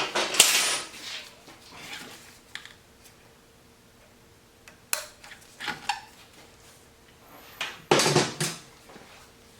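Hands working small plastic connectors and parts on an electric dirt bike's wiring: scattered clicks and rattles, with a clatter at the start, two sharp clicks around the middle and a longer rattle near the end.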